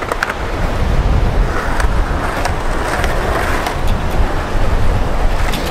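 Skateboard wheels rolling on pavement, with a few sharp clacks of the board, under a heavy low rumble of strong gusting wind buffeting the microphone.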